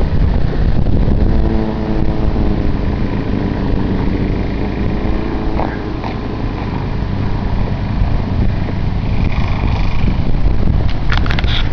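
Heavy wind rumbling on the microphone, with an engine running nearby; its steady hum is clearest for a few seconds soon after the start. A few sharp clicks near the end.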